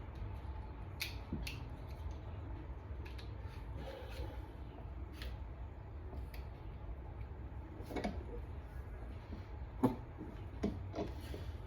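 Scattered light clicks and taps of metal suppressor parts, baffles and clamp shells, being handled and fitted, over a steady low hum. The sharpest click comes near the end.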